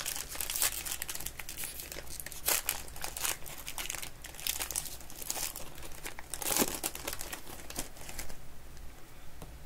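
Foil trading-card pack wrappers being torn open and crinkled by hand: a busy run of sharp crackles, loudest about two and a half and six and a half seconds in.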